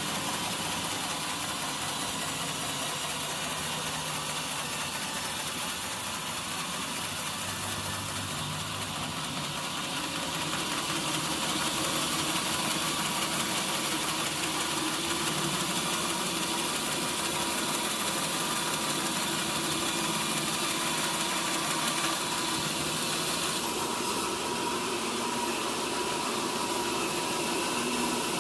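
Sawmill machinery running steadily: a motor hum under a broad, hissing noise, which grows a little louder about a third of the way through.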